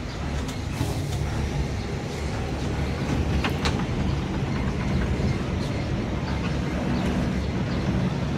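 Steady low rumble inside a moving aerial cable car cabin as it travels along its cable, with a couple of faint clicks a little over three seconds in.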